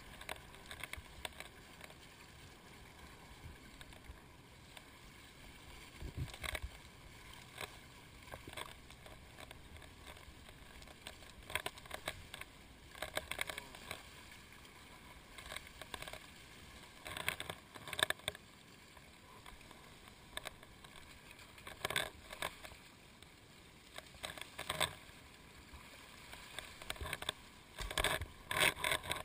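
Seawater sloshing and splashing against a GoPro's waterproof housing held at the surface, in irregular short splashes every one to few seconds over a steady low hiss, with a cluster of louder splashes near the end.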